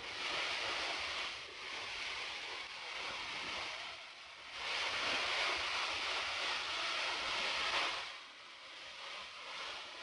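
Tall waterfall, about 80 m high, pouring onto rock: a steady rushing of falling water. It dips briefly a little before halfway, is louder for a few seconds after, and eases off near the end.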